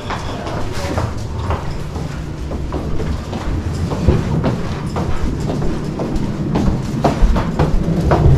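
Footsteps along a hallway floor, short knocks every half second or so, over a steady low rumble of handling noise on the handheld camera's microphone.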